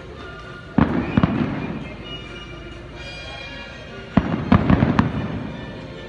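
Fireworks going off in two quick clusters of sharp bangs, each followed by crackling that dies away, over background music.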